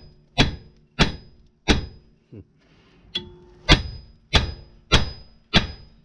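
Heavy hammer striking the steel steering knuckle of a VW Crafter, each blow ringing metallically. There are three blows, a pause of about two seconds, then four more, roughly one and a half a second. The blows are shocking the outer track rod end's seized taper loose from the knuckle.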